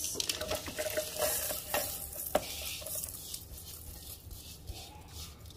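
Plantain slices, dried fruit and nuts sliding off a metal bowl into a blender jar, with a few sharp knocks, then sesame seeds pouring in with a light hiss that fades.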